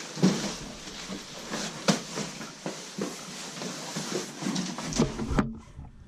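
Unboxing handling noise: scattered taps, knocks and rustles as packaging and its contents are moved about, with no steady rhythm.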